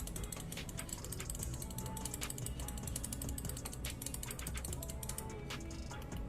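Rapid run of small mechanical clicks from a HyperX gaming peripheral being worked, over background music with a steady beat.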